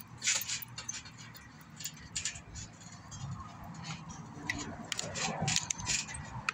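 A person bouncing and flipping on a trampoline: short rustling swishes from the mat and springs every second or two, coming quicker near the end.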